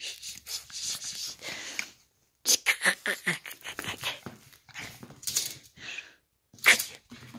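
A Chihuahua making a string of short, quick play noises as it wrestles with a toy, with one sharp, louder sound near the end.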